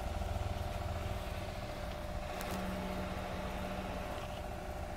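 Steady mechanical hum: a constant mid-pitched whine over a low rumble, with a short lower tone joining about halfway through.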